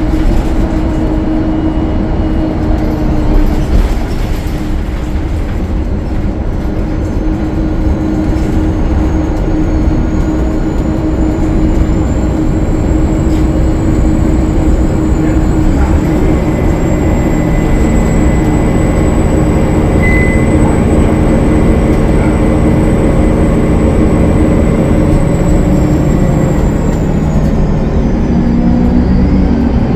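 A Gillig Low Floor transit bus's Cummins ISL9 diesel engine running under way, heard on board, with a steady rumble beneath. A thin, high turbocharger whistle climbs in about eight seconds in, holds, then falls away near the end; it is typical of the turbo leak this bus is known for.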